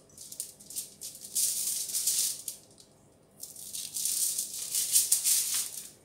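Aluminium foil crinkling and rustling under hands that salt and rub an oiled potato on a foil-lined baking tray, with salt grains pattering on the foil. It comes in three bursts of crisp rustling with short pauses between them.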